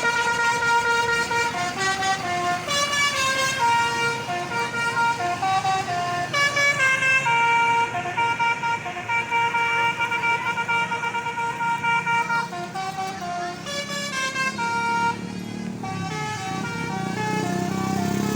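Basuri telolet horn on an Indonesian bus playing a tune: loud horn notes stepping quickly up and down between several pitches.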